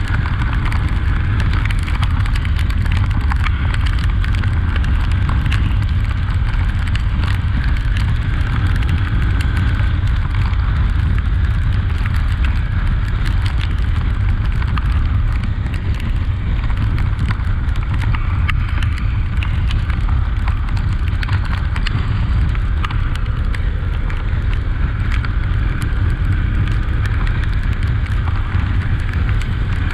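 Honda XRE 300 motorcycle riding along, its single-cylinder engine running under heavy wind rumble on the microphone, with many sharp ticks over it.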